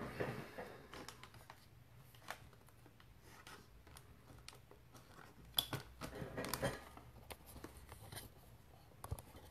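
Faint handling noises: a brief rustle of a wipe rubbed between the hands, then scattered light clicks and knocks as a PVC pipe is fitted into a plastic pipe stand, busiest a little past the middle.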